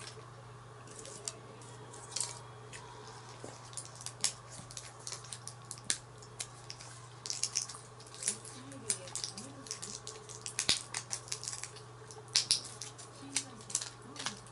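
Plastic-and-foil blister packs crackling and clicking as tablets are pushed out, in quick irregular clicks, over a steady low hum.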